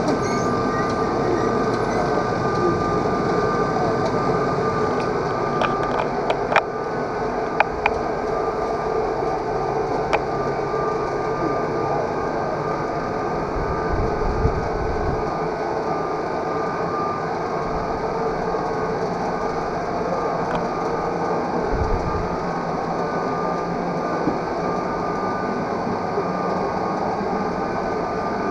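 Cable lift running steadily through a rock shaft, a continuous mechanical hum with a few held tones, and a few light clicks and rattles about six to eight seconds in.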